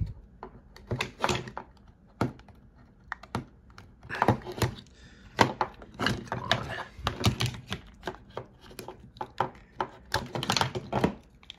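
Handling noise from plastic handheld walkie-talkies: irregular clicks and knocks as a programming cable's plug is worked at a radio's side jack and the radios are moved and set down on the desk.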